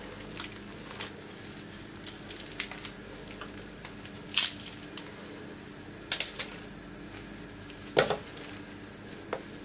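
Baked flaky layered pastry (Sivas katmer) being pulled apart by hand, its crisp crust crackling and snapping in scattered short crackles, loudest about four, six and eight seconds in.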